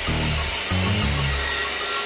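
Mitre saw blade cutting through a laminated wooden piece, a steady sawing noise, with background music and its bass line playing alongside.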